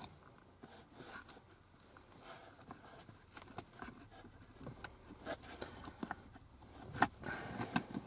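Light clicks and rustling of hands handling and twisting the stripped ends of a car seat's wiring loom, with a sharper tap near the end.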